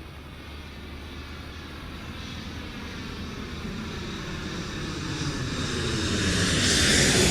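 Radio-controlled model airplane flying, its motor and propeller sound growing steadily louder as it comes closer.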